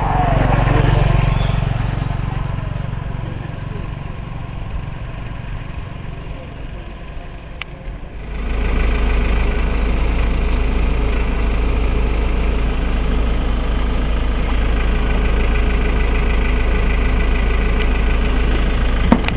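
A motorbike passing close by, its engine hum loud for the first second or two and then fading away. About eight seconds in, a steady low rumble of a car driving begins abruptly and runs on evenly until just before the end.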